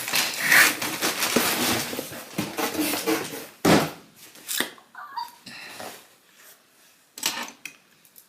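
Packaging being handled during an unboxing: rustling and clattering, with a sharp knock about three and a half seconds in and another near the end.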